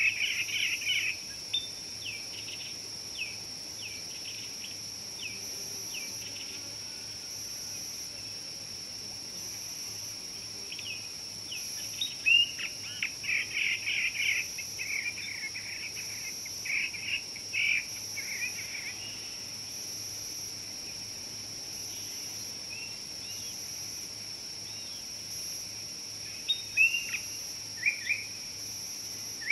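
Steady high-pitched insect drone with bird calls over it: clusters of short chirps at the start, in the middle and again near the end.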